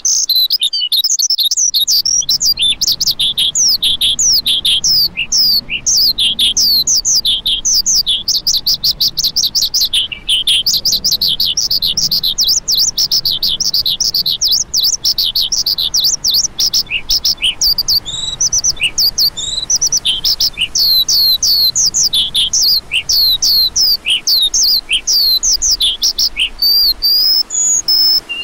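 Lark song: a fast, unbroken run of short, high chirps and sharp down-slurred notes, with hardly a pause.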